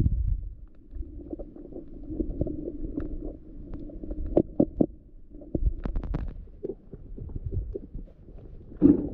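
Underwater sound picked up by a submerged camera: a low, muffled rumbling of moving water with scattered clicks and knocks, one louder knock near the end.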